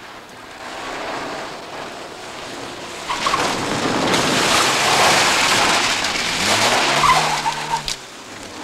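A car driven hard through a sharp turn: tyres skidding on asphalt over the engine, building up from about three seconds in, with brief tyre squeals and the engine revving up and dropping back near the end.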